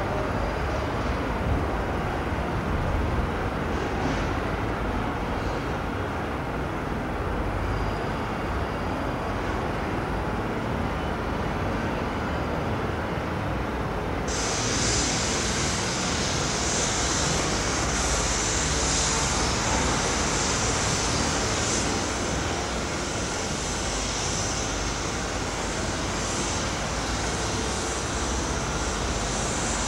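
Trains moving over the tracks of a large railway terminus, recorded on a 1980s camcorder: a steady rumble and running noise of rolling stock. A little under halfway through, the sound changes abruptly and a steady high hiss joins the rumble.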